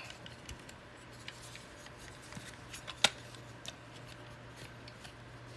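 Small plastic clicks and taps from handling the DX Taka Watchroid toy, with one sharp click about three seconds in.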